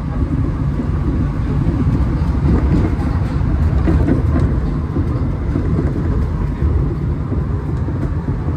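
Interior running noise of an Alstom NS-93 rubber-tyred metro train moving between stations: a steady low rumble that swells a little in the middle.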